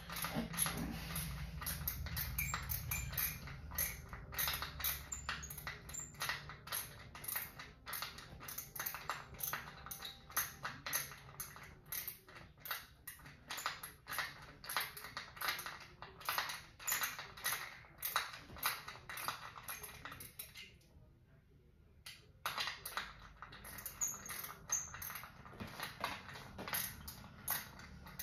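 Hand scraping and rubbing at a small flat workpiece in quick, irregular strokes, several a second, stopping for about two seconds three-quarters of the way through.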